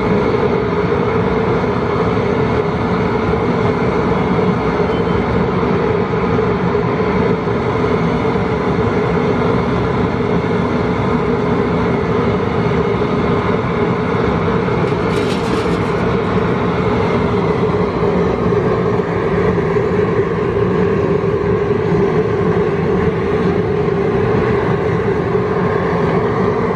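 Propane burner running flat out under a large pot of boiling water for a shrimp boil: a loud, steady rushing noise with a low hum. A brief hiss rises over it about halfway through.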